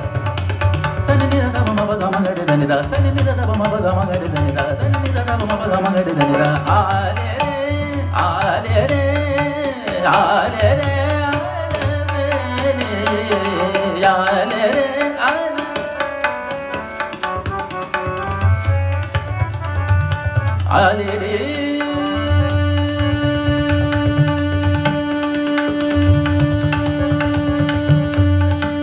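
Hindustani classical vocal performance in raag Behag. The singer runs through rising and falling melodic passages, then holds one long steady note from about 21 s in. Tabla keeps the beat throughout, with harmonium and tanpura accompanying.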